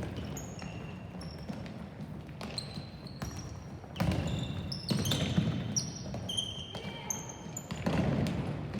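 Sneakers squeaking on a gym floor during play, many short high squeaks, with a few sharp thuds of a ball or feet about four, five and eight seconds in, over a murmur of spectators.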